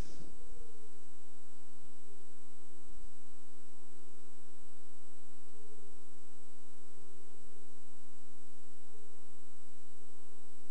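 Steady electrical mains hum with a buzz of many overtones and a thin high whine, unchanging throughout.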